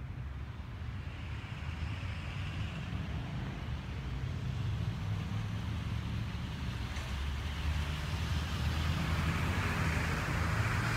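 Low, steady rumble of a motor vehicle with a rising hiss of tyre or road noise, growing louder toward the end.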